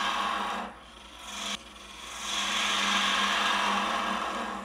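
A large gouge cutting the walnut stem of a goblet turning on a wood lathe, the tool shearing the wood with a rushing scrape. It comes in two passes: a short one at the start and a longer one from about two seconds in.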